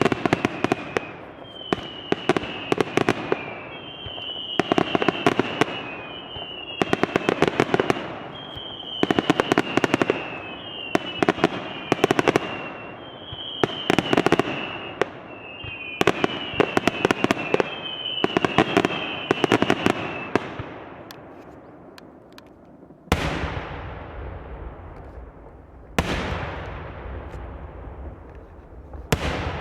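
Fireworks display. About ten volleys come one every two seconds, each a short falling whistle among a cluster of sharp cracks. From about two-thirds of the way in, three heavy shell bursts boom with long rolling echoes.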